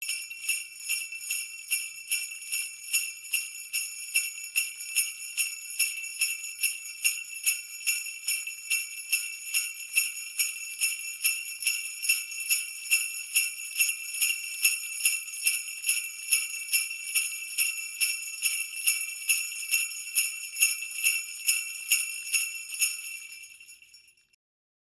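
Jingle bells shaken in a steady rhythm, about two shakes a second, over a bright continuous ringing. The ringing fades away near the end.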